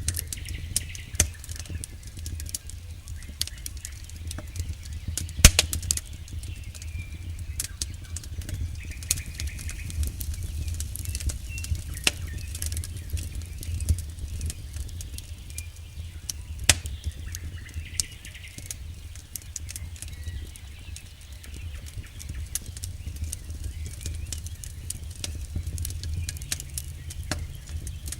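Wood campfire crackling, with irregular snaps and pops from the burning logs and one loud pop about five seconds in, over a low steady rumble.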